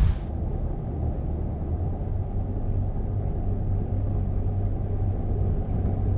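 A low, steady rumble with a constant hum underneath, and almost nothing in the higher range.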